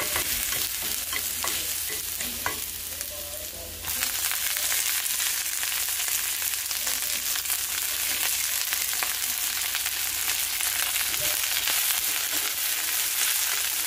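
Julienned ginger sizzling in hot oil in a stainless steel pan, stirred with wooden chopsticks, with a few light taps in the first seconds. About four seconds in the sizzle jumps louder and stays loud as cut green onions go into the hot pan.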